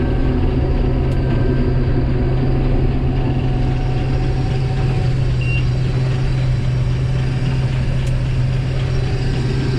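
Combine harvester running steadily under heavy load while threshing soybeans, a constant low drone of engine and machinery. About five and a half seconds in comes a short high beep: the warning that the rotor is being pulled down too far by the crop throughput.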